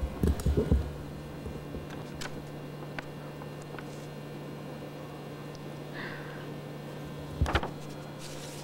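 Room tone dominated by a steady low electrical hum, with a few dull low thumps in the first second and another brief pair about seven and a half seconds in.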